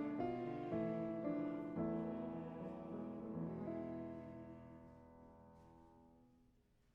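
Piano playing closing chords, the last of them, about two seconds in, held and left to fade away slowly.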